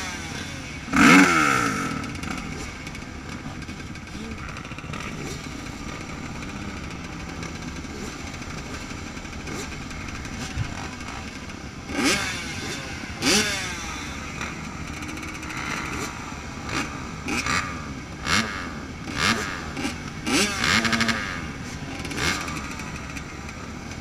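Several motocross dirt bikes idling at the start line, with short throttle blips that rise and fall in pitch now and then; the loudest comes about a second in, and there is a cluster near the end.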